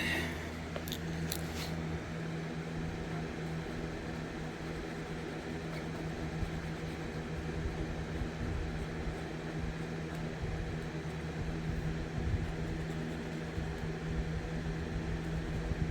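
Steady low mechanical hum with a constant drone, and a few faint clicks about a second in.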